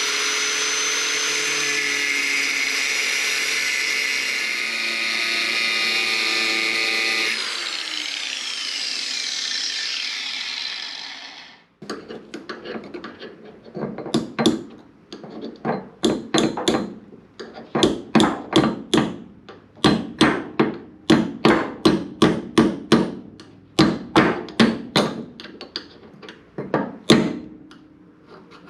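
A power tool runs at a steady high whine, then winds down and stops about twelve seconds in. After that, a hammer strikes metal again and again, about one to two blows a second. This is the work of removing the old pin from a squarebody Chevy C10 door hinge.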